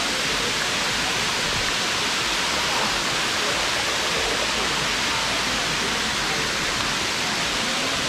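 Waterfall pouring over rock close by: a steady, dense rush of falling water.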